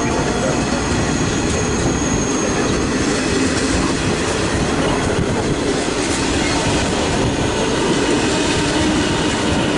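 Metra stainless-steel bilevel passenger cars passing at speed: a steady, loud rumble and rattle of wheels on the rails, with a thin high whine that fades out about three seconds in.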